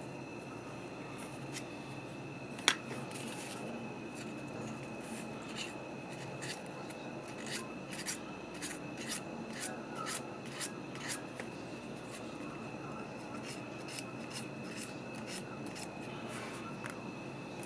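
Small clicks, taps and rubbing of the dimmer switch's parts being handled and fitted back together by hand, with one sharp click a little over two and a half seconds in. A faint steady high hum sits in the background.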